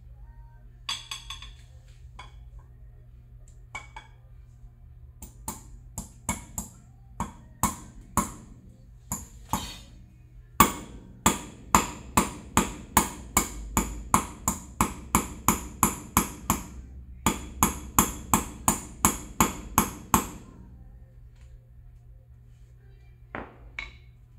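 Hammer tapping on metal while a bearing is worked out of the aluminium plate of a Begode Master electric unicycle, each strike giving a short metallic ring. A few scattered taps come first, then a steady run of about two strikes a second for some ten seconds, and a couple more taps near the end.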